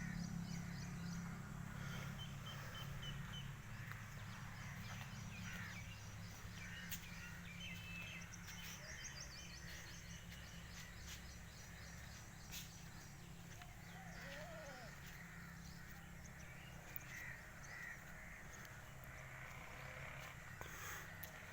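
Crows cawing and smaller birds chirping here and there over a steady low hum.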